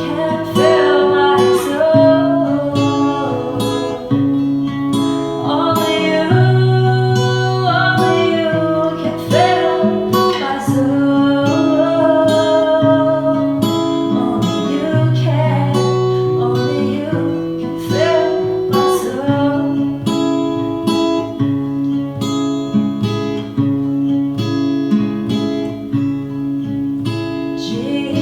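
Acoustic guitar strummed in steady chords under a sung worship melody.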